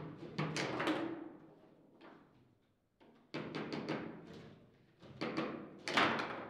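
Foosball table in play: quick clusters of hard clacks and knocks as the ball is struck by the plastic players and rods bang in the table, with a brief lull about halfway and the loudest knocks near the end.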